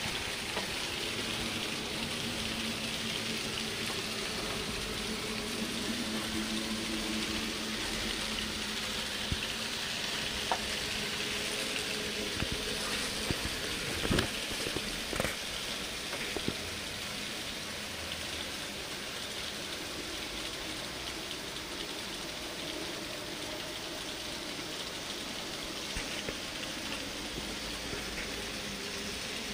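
Z scale model freight train running on the layout: a steady hissing rattle of the small wheels on the rails, with a low hum under it and a few sharp clicks about halfway through.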